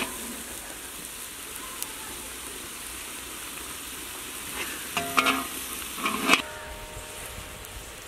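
Chopped tomatoes sizzling in a large iron kadai, a steady frying hiss. About five to six seconds in a metal ladle clanks against the pan a few times, leaving a short metallic ring, and the sizzle is quieter after that.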